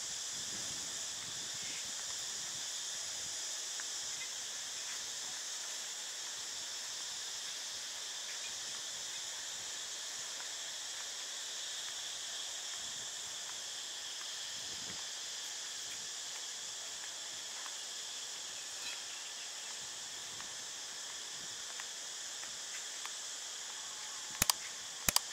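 Steady high-pitched chorus of insects, with two sharp clicks near the end.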